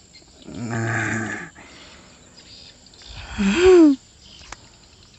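A man's wordless vocal sounds: a low steady hum about half a second in, then a short louder groan-like exclamation that rises and falls in pitch, near the middle. Faint high insect chirring underneath, and a single click near the end.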